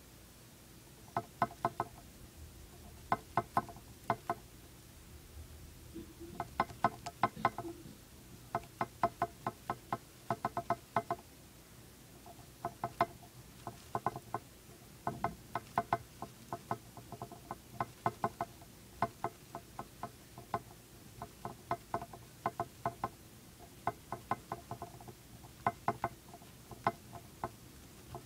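Dwarf hamster gnawing a hard cheese chew made of wheat gluten, rice and corn: quick runs of sharp crunching clicks, several in a row, with short pauses between the runs.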